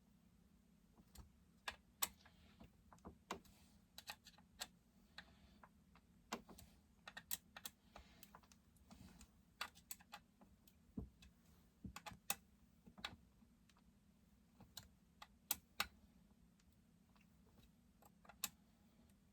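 Irregular light clicks and taps of hand tools and small chainsaw parts being handled during assembly, with a few short scraping sounds in between.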